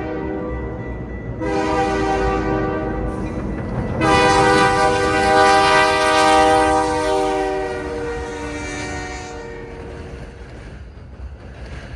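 Air horn of a CN SD60 diesel locomotive leading a freight train, sounding a multi-note chord. The first blast comes about a second and a half in, then a longer, louder blast follows about four seconds in and fades out near ten seconds, over the low rumble of the passing train.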